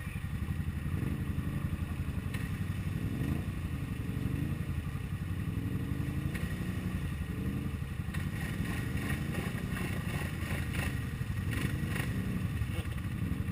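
ATV engines running, the pitch rising and falling as a quad stuck axle-deep in mud is throttled and worked forward; it is stuck without four-wheel drive engaged. A few short knocks come in the second half.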